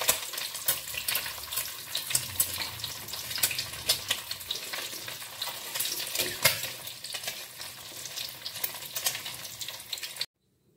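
An egg frying in hot oil in a metal wok, sizzling steadily with many small crackling pops and a few louder clicks. It cuts off abruptly near the end.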